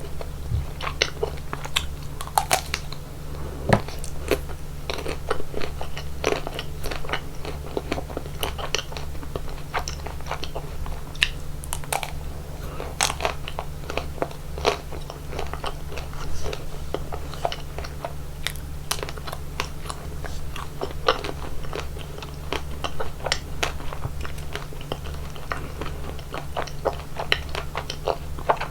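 Chocolate ice cream being eaten close to the microphone: irregular crisp crunching bites and wet chewing, over a steady low hum.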